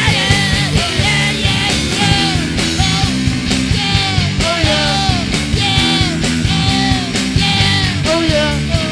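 Rock song played by a band: a steady drum beat under guitars, with a lead line that bends and slides in pitch.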